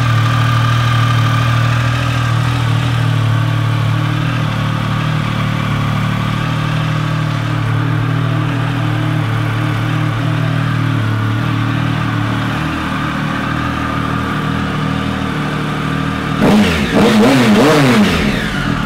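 2011 Triumph Speed Triple 1050's inline three-cylinder engine idling steadily through an aftermarket dual exhaust, then revved in several quick throttle blips near the end.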